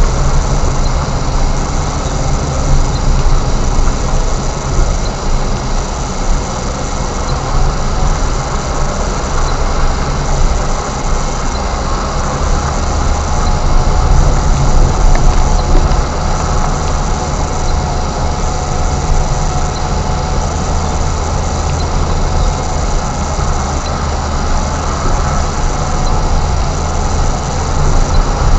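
Car driving slowly along a rough dirt road: steady engine noise with the low rumble of the tyres on the unpaved surface, a little louder about halfway through.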